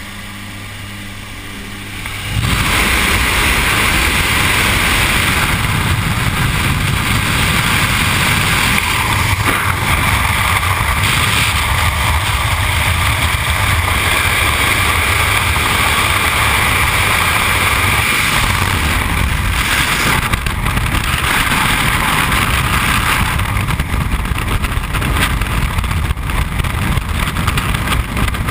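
Jump plane's engine drone in the cabin. A couple of seconds in, it is suddenly buried under a loud, steady rush of wind as the jump door opens. The wind keeps buffeting the helmet camera's microphone through the exit into freefall.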